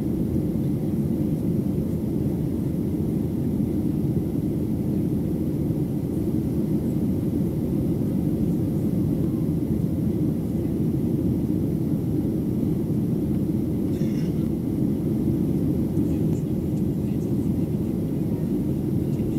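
Steady cabin noise of a Boeing 737-700 in flight, heard from a window seat over the wing: a constant low rumble of the CFM56 engines and the airflow around the fuselage.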